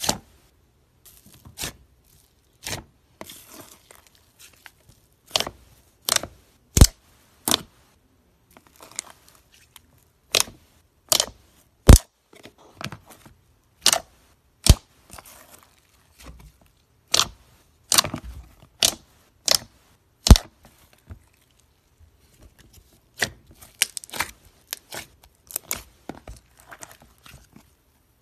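Fingers poking, pressing and squeezing a thick slime, giving sharp pops and clicks at irregular intervals, some much louder than others.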